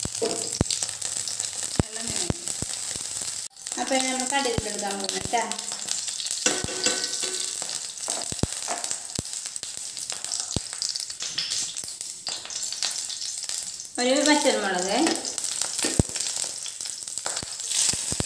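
Food sizzling as it fries in hot oil in a pan, with a cooking utensil stirring it and knocking against the pan in scattered sharp clicks.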